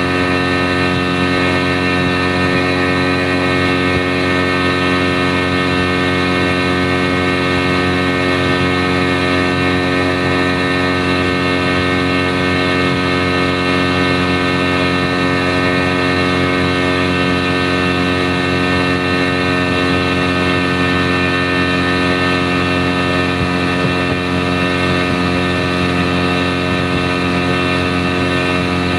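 Engine running steadily at one unchanging speed for the whole stretch, a constant pitched hum with no revving.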